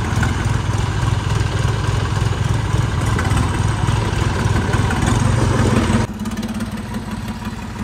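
Tractor diesel engines idling steadily with a low hum. About six seconds in the sound drops to a quieter, even hum.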